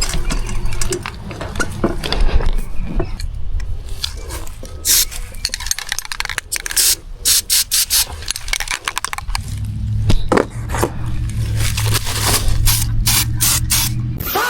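Aerosol spray-paint can spraying black paint onto plastic bike panels in a series of short hissing bursts, clustered in the middle and near the end.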